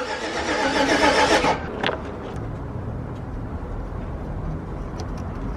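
Starter motor cranking the GMC Yukon's freshly rebuilt V8 with the fuel disconnected, so it turns over without firing: a dry crank to build oil pressure. The cranking stops about a second and a half in, followed by a short click.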